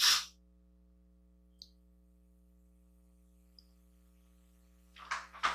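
Mostly near silence with a faint steady electrical hum and two tiny ticks, framed by a short breathy exhale at the very start and a breath near the end.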